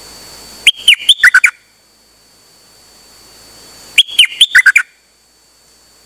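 Caged songbird (the Thai 'nok dok taeng') singing two short phrases of quick, clear whistled notes about three seconds apart, each under a second long. A steady thin high tone runs underneath.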